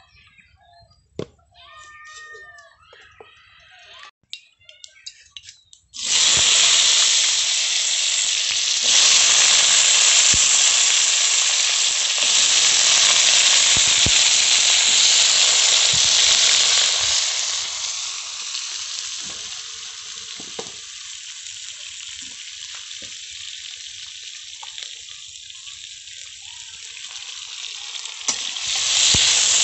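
Potato pieces frying in hot oil in an iron wok (karahi): a loud sizzle starts suddenly about six seconds in as they go into the oil. It dies down over the following seconds and swells again near the end.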